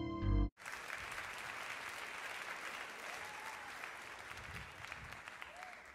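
An audience claps in applause, a dense crackle that gradually fades out near the end. About half a second in, it takes over from the tail of the intro music, which cuts off abruptly.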